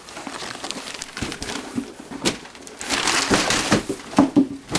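Christmas wrapping paper being torn and crumpled by hand as a present is ripped open, in irregular rustling, crackling bursts that are busiest in the last second and a half.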